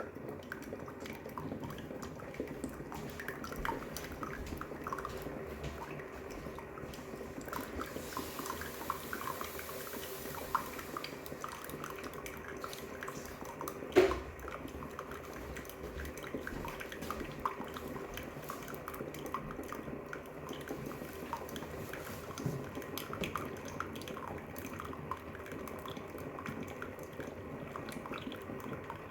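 Hamilton Beach Scoop single-serve coffee maker mid-brew: the water heats and the coffee drips, with a steady run of small pops and ticks. A brief hiss comes about a third of the way in, and one sharp knock, the loudest sound, about halfway through.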